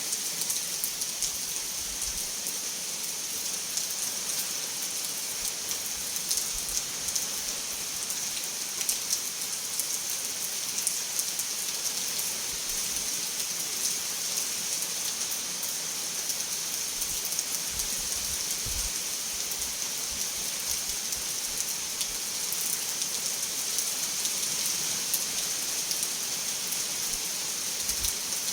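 Steady rain falling, an even hiss with many small droplet ticks and no thunder.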